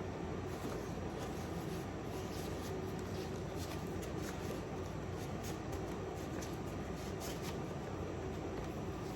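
Faint rustling and scraping of a paper record sleeve being handled, a string of light scratchy sounds over a steady room hiss.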